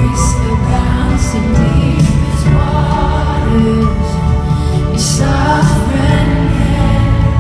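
Live worship band with singers performing a contemporary worship song through an arena PA, with a heavy bass.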